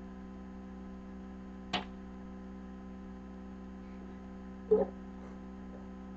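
Steady electrical hum made of several even tones, with a short sharp click a little under two seconds in and a brief louder sound near five seconds.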